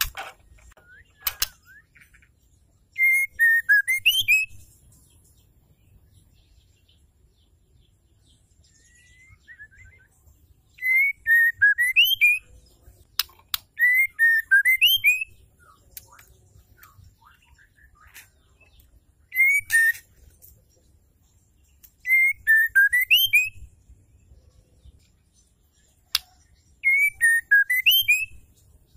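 Female white-rumped shama singing the same short whistled phrase about six times, a few seconds apart. Each phrase dips then rises, with a fast thin high twitter over it. A few sharp clicks fall between the phrases.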